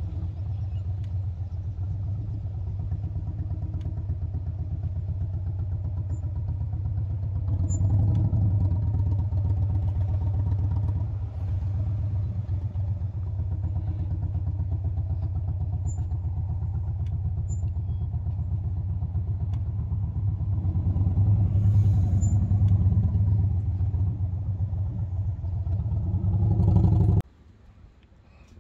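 Car engine and road noise heard from inside the cabin while driving: a steady low rumble that cuts off suddenly near the end.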